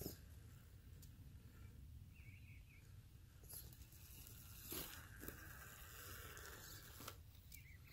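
Near silence: a distant electric RC rock crawler climbing, heard as a faint motor whine with a few soft clicks of its tires and chassis on bark and roots.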